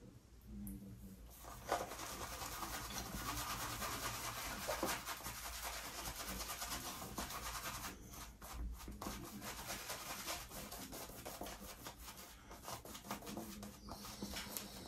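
Wet shaving on a stubbled face: steady scratchy rubbing starting about two seconds in, with a short lull about eight seconds in.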